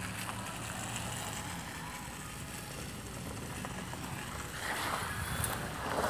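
Wind rushing over a phone's microphone: a steady noise that swells near the end.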